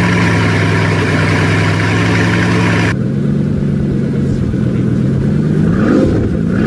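Bugatti Chiron's W16 engine idling steadily. The sound changes abruptly about three seconds in, and a short rev rises in pitch near the end.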